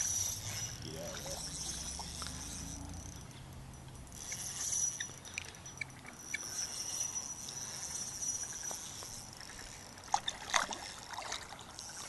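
Hooked carp thrashing and splashing at the surface of the pond, with the sharpest splashes about ten seconds in.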